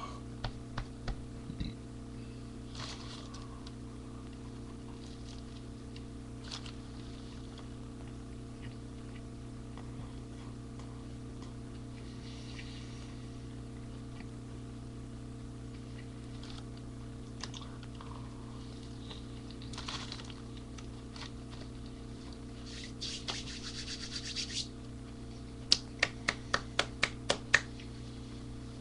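Steady low electrical hum with scattered single clicks, then a quick run of about nine sharp clicks near the end.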